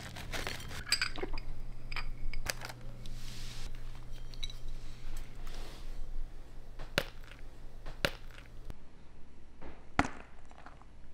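Food handling: rustling of a plastic packet and scattered sharp clicks and knocks as a hot dog is topped with ketchup and crispy fried onions, then a bite into the soft bun about ten seconds in. A low steady hum drops out about three-quarters of the way through.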